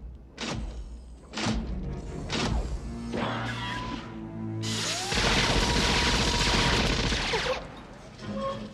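Action-film soundtrack: dramatic orchestral score punctuated by heavy hits in the first couple of seconds, then a loud crashing blast of noise lasting about three seconds from around the middle, which cuts off shortly before the end.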